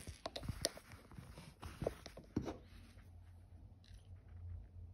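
Handling noise from a wristwatch and a metal case-back wrench being picked up and set down on a cloth: a quick run of small clicks and knocks over the first two and a half seconds, then faint rustling and light ticks.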